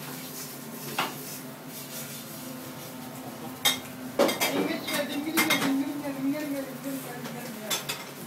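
Dishes and cutlery clattering at a stainless steel sink during washing-up, with a sharp clink about a second in and several more in the second half. From about four seconds in, a man sings a drawn-out, wavering tune over the clatter.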